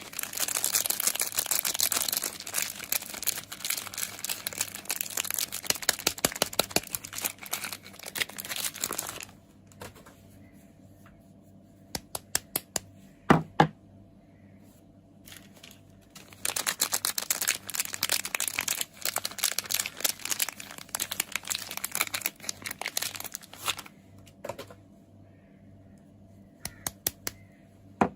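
Soap packaging being crinkled and torn open by hand: two long stretches of dense crackling, with a few separate sharp clicks or taps in between and near the end.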